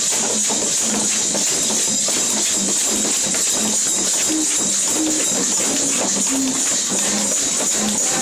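A group shaking homemade rattles and shakers made from bottles, cans and other household materials, a dense, continuous rattle and hiss in rhythm. A simple tune of short low notes runs under it.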